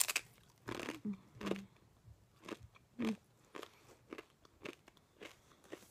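Mouth-close crunching of a kettle-cooked beet chip: a loud bite right at the start, then chewing with crisp crunches about two a second that grow fainter toward the end. The chip is very crunchy.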